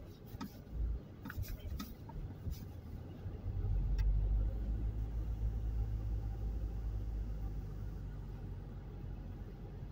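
Car cabin noise on the move: a low engine and road rumble that swells about three and a half seconds in, then slowly eases off, with a few faint clicks in the first couple of seconds.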